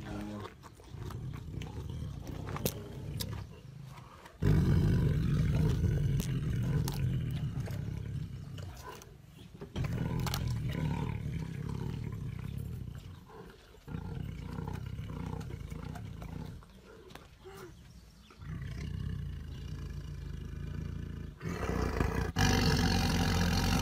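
A tiger growling in long, low rumbles lasting a few seconds each, with short pauses between, as it feeds on raw meat; a few sharp cracks of chewing come through near the start.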